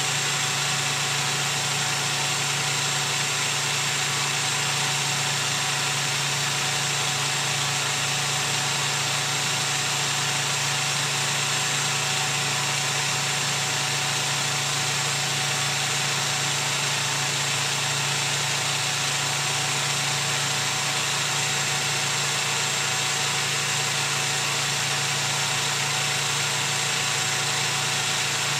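A machine running steadily at an even speed: a constant low hum with a hiss over it, with no change in speed or load.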